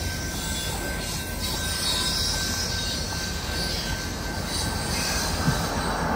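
Freight train of open-top hopper and gondola cars rolling past at a level crossing: a steady rumble of wheels on rail, with a thin, steady high-pitched tone over it.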